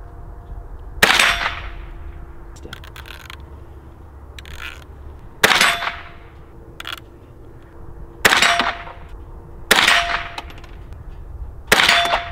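A scoped .22 rifle fired five times from a rest while it is being sighted in, the shots a few seconds apart. Each shot is a sharp crack followed by a brief ringing tone, and there are fainter clicks between shots.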